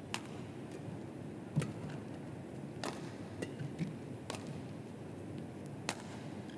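Badminton rally: rackets striking a shuttlecock, about five sharp hits roughly a second and a half apart, over a steady low hall noise.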